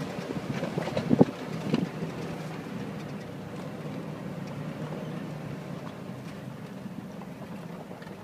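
Jeep tires grinding and crunching over sharp loose rock, with several loud cracks in the first two seconds, over the steady low hum of the engine.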